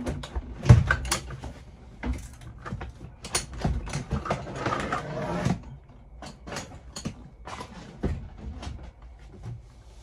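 Van engine cover being unlatched and lifted out: clicks and clunks from its metal clamps, with a sharp knock about a second in, then the cover scraping and knocking as it is pulled free.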